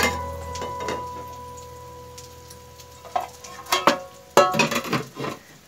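Metal kitchenware clinking: a steel slotted spoon and an aluminium pot lid knocking against an aluminium cooking pot, a handful of sharp clinks that ring briefly, bunched in the second half.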